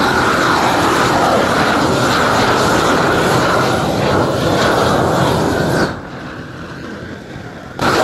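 Roofing torch burning at full flame as it heats rubber modified torch-down roofing sheet to bond it; about six seconds in the flame noise falls sharply to a much quieter level.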